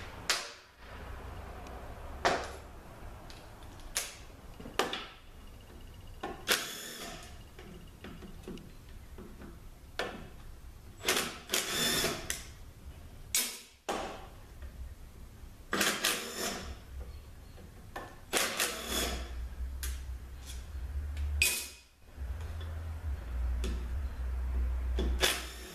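Cordless drill-driver running in short spells, backing bolts out of an AX4N transaxle case, with sharp metal clinks and clanks of bolts, parts and tools in between. A longer steady stretch of running comes near the end.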